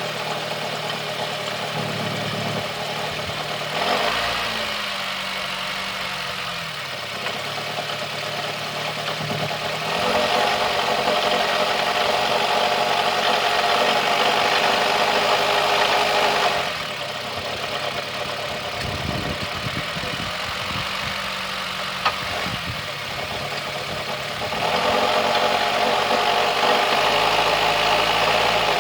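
2007 Honda Fit's four-cylinder engine running cold with its automatic transmission in gear, with a metallic rattle from a loose, rusted heat shield on the catalytic converter. The sound gets louder twice, for about six seconds from ten seconds in and again near the end, as the rattle grows with throttle and torque.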